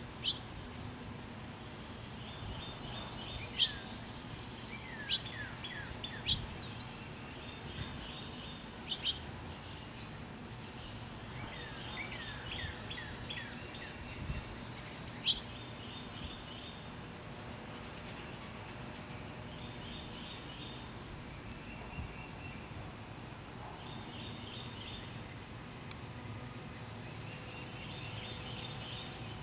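Wild songbirds calling and singing: repeated short, fast runs of high chirping notes, with a few groups of downslurred whistled notes. Sharp clicks stand out now and then, loudest in the first half.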